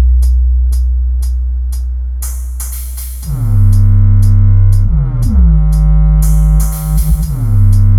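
Electronic dance music with heavy sub-bass played through a Klipsch Cinema 400 2.1 soundbar and its subwoofer. A held deep bass note fades away over the first three seconds, then a new bass line comes in with falling pitch drops, over a steady ticking hi-hat.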